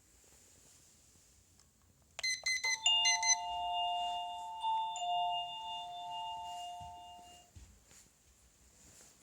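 Doorbell chime: a quick run of short high ticks, then a two-note ding-dong, high note then low, that rings on and fades out over about five seconds.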